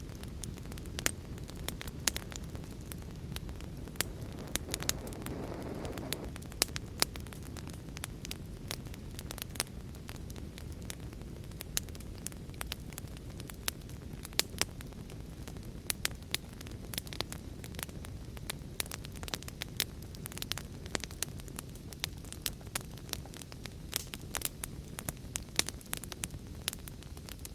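Wood fire burning in a fireplace: frequent sharp, irregular crackles and pops over a steady low rumble, with a short swell of louder noise about five seconds in.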